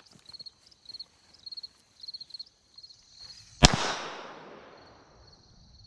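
A single unsuppressed .22 LR pistol shot from an FN 502, about two-thirds of the way in, with a long echoing decay. Insects chirp in short rhythmic pulses throughout.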